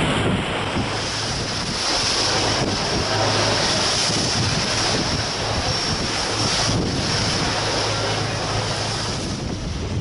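Wind buffeting the microphone over rushing sea water, with a steady low engine hum underneath, as aboard a moving boat.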